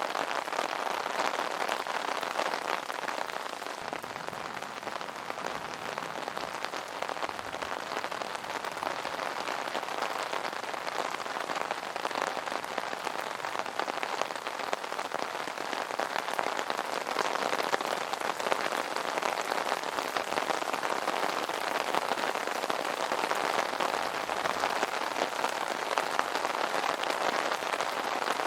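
Steady rain pattering on an umbrella canopy, a dense even spatter of drops without let-up.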